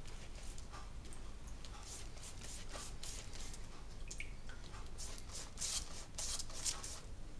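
Pastry brush stroking water onto risen bread dough on baking parchment: a run of soft, short swishes, coming thicker about five seconds in.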